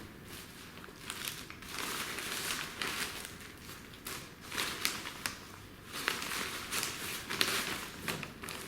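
Packaging rustling and crinkling in irregular bursts, with a few sharp clicks, as a softbox is pulled out of its wrapping.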